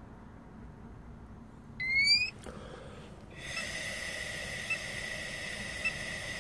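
Intoxalock ignition interlock breathalyzer giving a short rising beep, its prompt to blow. From about three seconds in, a breath is blown steadily through its mouthpiece, a rush of air under a steady high tone.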